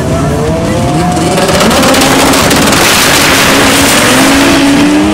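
Turbocharged front-wheel-drive drag car launching from the starting line and accelerating hard down the strip, the engine note rising as it pulls away. A loud rushing roar builds from about a second and a half in and peaks around three to four seconds.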